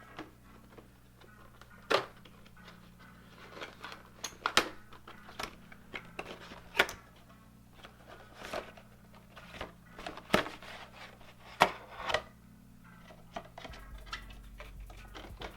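Product packaging being opened and handled by hand: rustling and scraping with several sharp clicks and knocks as the box and its contents are handled.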